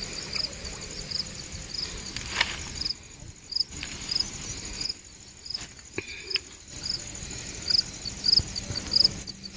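Insect chirping steadily, short high chirps repeating about two to three times a second, with a few faint clicks in between.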